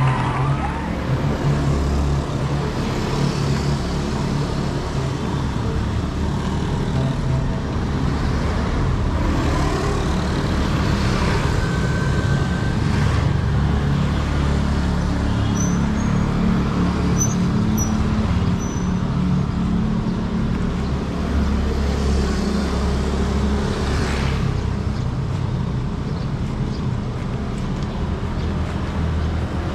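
Street traffic: vehicle engines running and passing, a steady low rumble of road noise.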